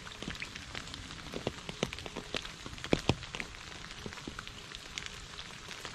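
Rain falling into a shallow puddle: a steady hiss with many separate drops landing in the water, a couple of louder drops about halfway through.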